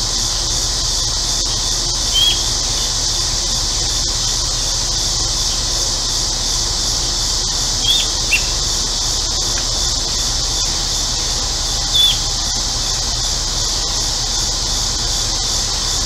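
Steady, high-pitched drone of a cicada chorus, with four short bird chirps scattered through it. Underneath runs a low, steady hum from an air conditioner.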